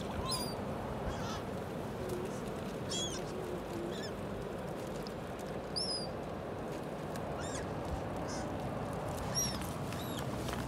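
Waterbirds calling over a lake: short, high cries every second or two, over a steady background rush.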